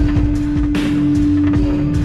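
Music with a steady drum beat over a long held note.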